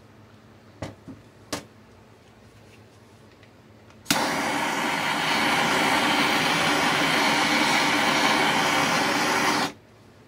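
A few light knocks about a second in, then a hose-fed gas hand torch lights with a sudden start and burns with a steady hiss for about five and a half seconds before cutting off sharply, its flame heating the freshly poured tin in the skull mold.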